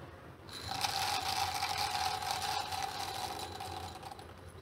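Fried boondi poured from a small bowl into a bowl of yogurt, giving a continuous hiss with a steady ringing tone under it. The sound starts about half a second in and stops near the end, lasting about three and a half seconds.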